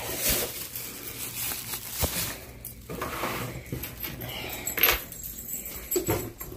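Handling noise: rustling with light metallic clinks and a few sharp knocks as things are carried and set down.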